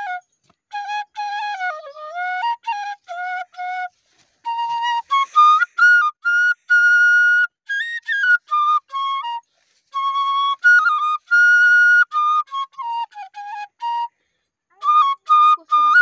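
Solo melody on a side-blown metal flute, played in sliding, ornamented phrases with short pauses for breath. It starts in a lower register and climbs higher after a breath about four seconds in; another breath comes near the end.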